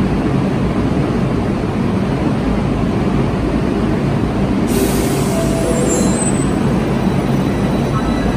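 Bucharest Metro train running in a station: a steady loud rumble, with a hiss joining in a little past halfway and faint whining tones near the end.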